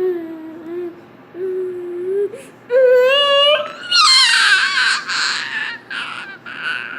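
A baby vocalising in funny sounds. Two held 'aah' tones come in the first two seconds, then a higher, wavering one about three seconds in. A louder, breathy squeal follows about four seconds in, then a string of short squeals.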